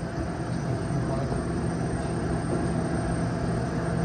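Turbo Air freezer's refrigeration condensing unit running steadily: an even mains hum from the compressor and fan. The compressor is running again after being stalled by a failed Supco 3-in-1 hard start kit.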